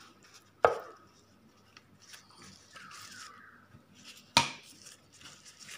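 Soft rustling of a plastic sheet and wrapper as a minced pork filling is rolled up by hand, with two sharp knocks, one a little after the start and one about four seconds in.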